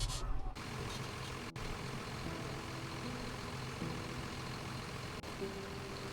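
A vehicle engine running steadily, cut into several short clips with abrupt breaks about half a second in, at a second and a half, and near five seconds.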